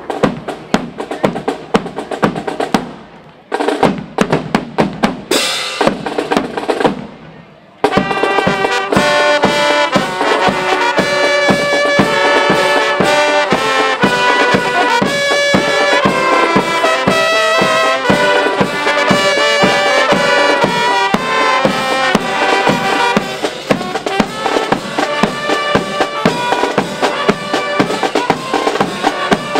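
Marching band drums beating a cadence; about eight seconds in, brass comes in playing a tune over the drums.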